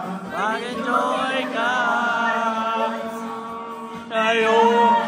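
A group of voices singing together in long held notes that slide between pitches, over a steady low drone; the singing swells on a loud held note about four seconds in.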